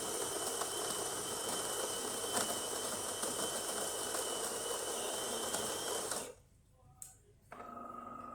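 DeLonghi Magnifica XS espresso machine's built-in grinder grinding beans for a shot, a steady noisy whirr with a faint high whine that cuts off about six seconds in. After a brief near-quiet pause, the newly replaced water pump starts with a steady hum near the end as brewing begins.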